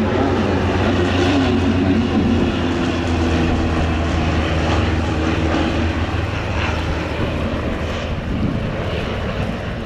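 Propeller engines of an Antonov An-2 biplane, with its nine-cylinder radial engine, and three Aero AT-3 light aircraft flying past in formation. The sound is loud and steady, with a wavering engine pitch in the first couple of seconds, and it eases off slightly toward the end.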